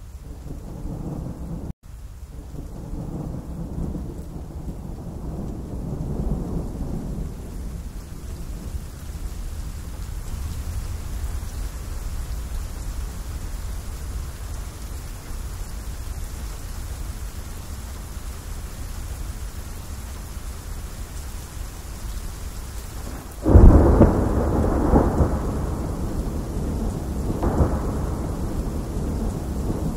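Steady rain falling on leaves, with low rolling thunder in the first several seconds. About three-quarters of the way through a loud thunderclap breaks in and rumbles on, swelling again near the end.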